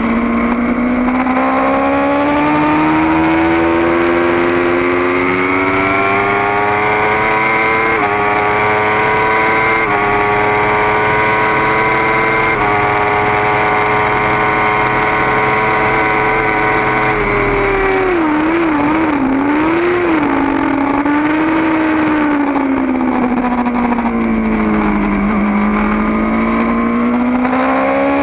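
Kawasaki Ninja ZX-10R inline-four engine heard from onboard, pulling hard with the pitch climbing through a few quick upshifts, then holding a steady high note at top speed in sixth with wind noise. About two-thirds of the way in it drops sharply under braking, with quick downshifts and throttle blips, sinks to its lowest note through the corner and climbs again as the bike accelerates out.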